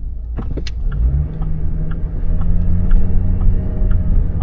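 Car engine and road rumble as the car pulls away after waiting and gathers speed, getting louder from about a second in, with a light tick repeating about twice a second.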